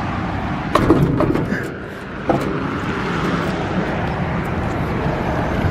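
Steady traffic noise from a roadside, with wind rumbling on the microphone of a handheld camera. A few sharp knocks about a second in and a single louder knock a little past two seconds come from the camera being handled or bumped.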